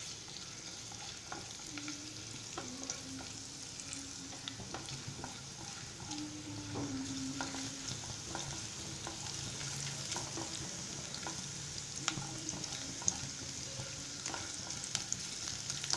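Chopped ginger and garlic sizzling steadily in hot sunflower oil in a non-stick pan, being sautéed, with scattered light scrapes and taps of a silicone spatula as they are stirred.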